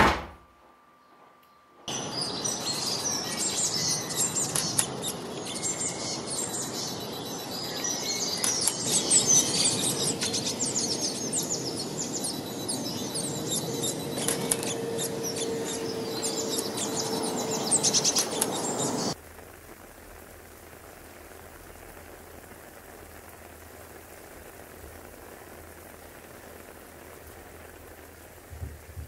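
A door shutting at the start, then birds chirping over outdoor ambience for about seventeen seconds, which cuts off suddenly to a quieter, steady hiss of rain.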